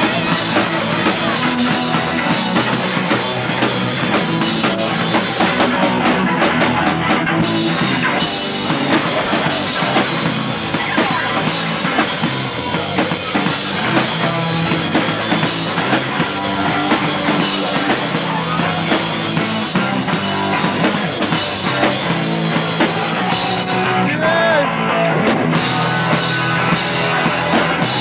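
Punk rock band playing live, with electric guitar and drum kit.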